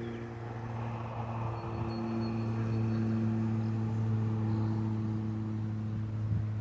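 A steady low mechanical hum holding one pitch, with faint background noise above it.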